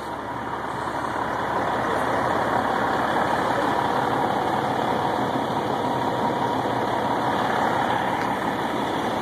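Parked fire truck's diesel engine idling, a steady rumble that grows louder over the first second or two and then holds.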